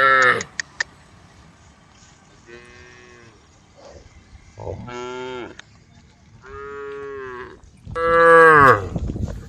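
Cows mooing in turn: one long moo dies away at the start, then four more drawn-out moos about two seconds apart, the last one the loudest.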